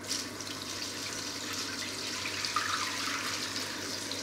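Water poured from a plastic measuring jug into a stainless steel pot fitted with a steamer basket, filling it for steaming; the steady pouring stops near the end.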